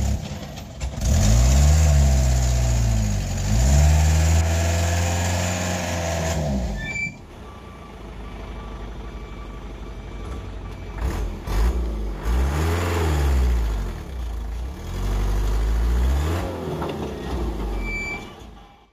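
Light diesel truck engine revving hard under load on a steep climb, its pitch rising and falling. The engine sound drops away abruptly about seven seconds in, then revs up again in two surges later on, as the truck struggles to make the hill.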